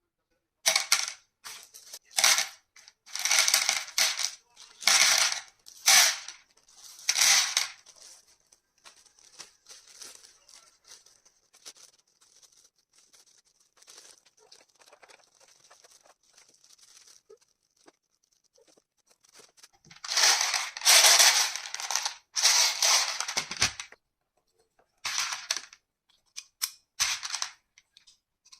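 Plastic handling noises from unboxing a toy pistol: repeated bursts of rustling and rattling, a cluster of them in the first several seconds and a longer, louder stretch about two-thirds of the way through.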